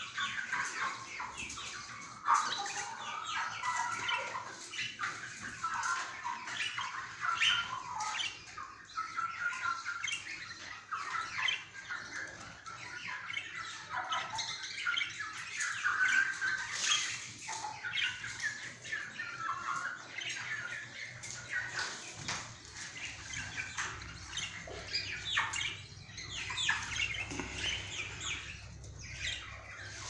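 Many birds chirping and squawking together in a dense, unbroken chatter of short calls.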